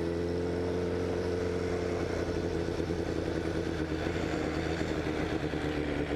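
Honda CBR1000RR's inline-four engine running steadily at low revs, its pitch settling and sagging slightly after the revs drop off at the start.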